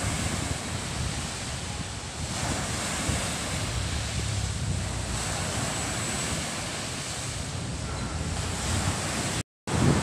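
Small sea waves breaking and washing up a sandy beach, a steady surf hiss that swells and eases, with wind buffeting the microphone as a low rumble. The sound drops out for a moment near the end.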